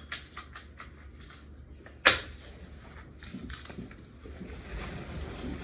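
Spring-cocked BB pistol fired once, a single sharp crack about two seconds in, with light clicks and handling of the gun around it.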